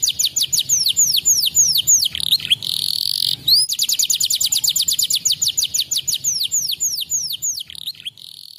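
Canary singing: a fast trill of down-slurred whistled notes that slows, breaks into a short buzzy rattle about three seconds in, then starts the same phrase again and fades out near the end. It is a canary song recording played to set other canaries singing.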